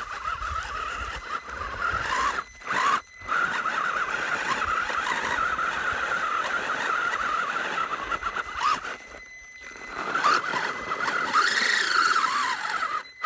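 WLtoys 12428 RC crawler's brushed electric motor and gear drive whining under load as it tries to climb a steep dirt bank. The pitch wavers with throttle and wheel slip. It cuts out briefly twice about two and a half to three seconds in, and again for about a second past the nine-second mark: the car is struggling and does not make the climb.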